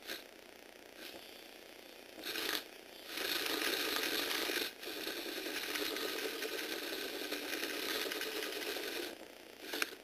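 Motorized Lego Technic vehicle's small electric motor and plastic gears running, a gritty, ratchety whirring. It starts in short bursts about two seconds in and runs steadily from about three seconds, with a brief break near five seconds, before dropping away near nine seconds.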